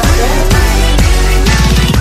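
Loud background music, an electronic pop track with a heavy bass and gliding melodic lines.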